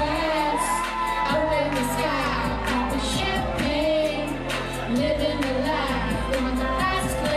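A woman singing into a handheld microphone over backing music with held bass notes and a steady beat.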